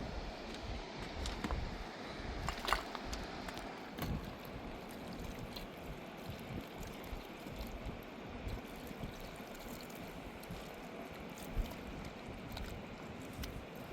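Steady rush of a fast-flowing river, with a few sharp knocks over it, the loudest about three seconds in.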